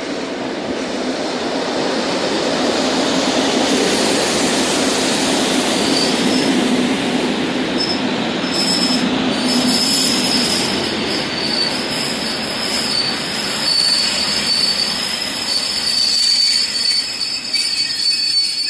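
EN57 electric multiple unit running into the station along the platform, its rumble building over the first few seconds. A high-pitched wheel squeal sets in about six seconds in and goes on as the train slows.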